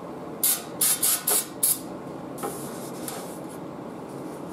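Aerosol spray can hissing in about five short bursts onto a steel transmission pan, followed by a shop towel rubbing and wiping the pan clean.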